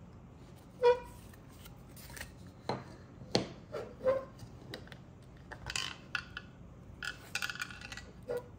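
Handling noise of a cylindrical watch box being unpacked: the lid and foam pad taken off and the watch lifted out, with scattered light knocks, clicks and short rustles. The loudest is a single knock with a brief ring about a second in.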